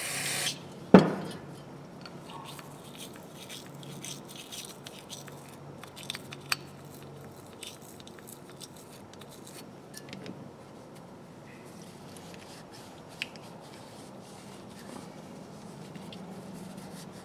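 Small metal parts of a ratchet being handled on a workbench: a brief hiss at the start, one sharp knock about a second in, then scattered faint clicks and taps over a steady low hum.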